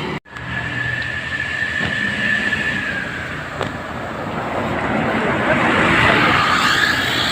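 A bus driving past on the road, with a steady high tone for the first few seconds. Its engine and tyre noise grow louder through the second half.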